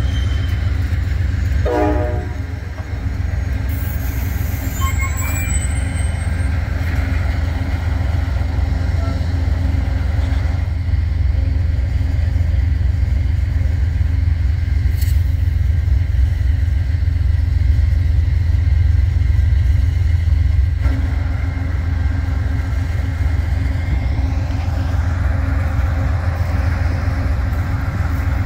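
Amtrak passenger cars rolling past close by: a steady, loud rumble and clatter of steel wheels on the rails.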